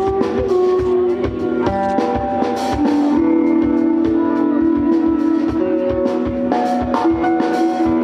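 Live band music: a transverse bamboo flute plays held melody notes over strummed acoustic guitar and a steady drum-kit beat.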